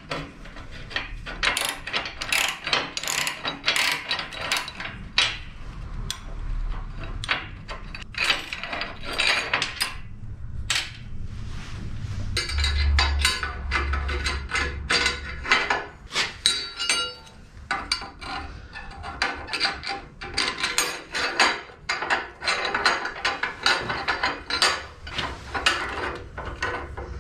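Ratchet spanner clicking in quick runs as nuts are undone on the steel rear-suspension spring bracket of a 7¼-inch gauge locomotive chassis, mixed with clinks of steel parts being handled.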